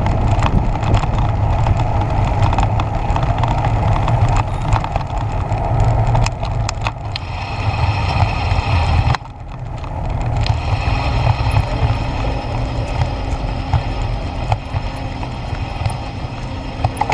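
Bicycle rolling over brick pavement: a steady rumble from the tyres with frequent rattling clicks from the bike jolting over the bricks.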